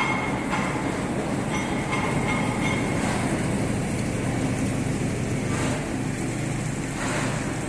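ALCX52Y CNC turning and milling machine running under test: a steady mechanical hum, with short high-pitched squeaks repeating irregularly during the first three seconds.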